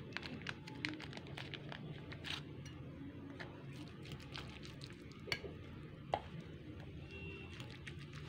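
Metal spoon stirring tuna flakes, chopped onion and mayonnaise in a ceramic bowl: soft squishing with many light scrapes and clicks against the bowl, and two sharper clinks a little past the middle.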